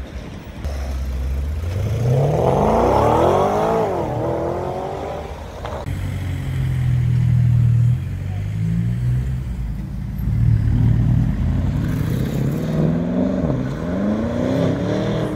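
Porsche Panamera engines accelerating hard from low speed. The revs climb steeply, drop at an upshift and climb again, and this happens twice. In between, a lower, steady engine note is heard as a car rolls past.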